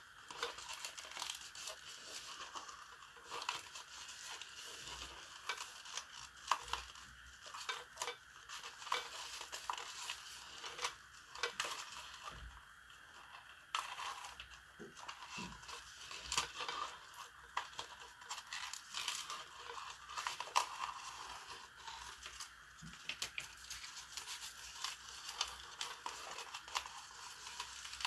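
Twine rustling and scraping as it is wound by hand around a plastic flower pot, with quiet, scattered light clicks and scrapes as the pot is turned and handled.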